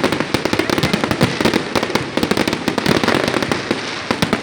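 Fireworks display: a dense, unbroken barrage of sharp bangs and crackles, many reports a second.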